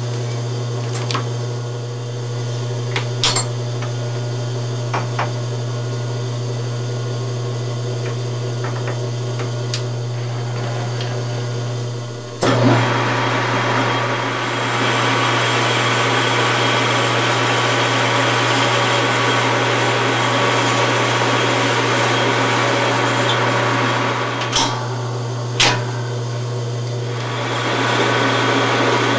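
Metal lathe running with a steady motor hum, with a few sharp knocks in the first seconds. About twelve seconds in, the cutting tool bites into the spinning billet aluminium part and adds a steady, hissing cutting noise that eases off near the end.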